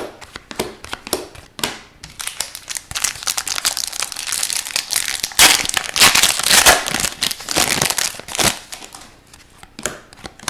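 Hockey card pack wrapper crinkling as it is torn open and crumpled. The crinkling builds through the middle and is loudest just past halfway, with light card clicks around it.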